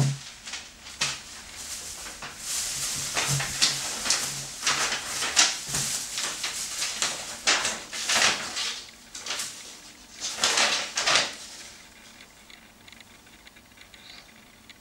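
Thin plastic bags and paper rustling and crinkling in repeated bursts as groceries are handled, dying down about three-quarters of the way through.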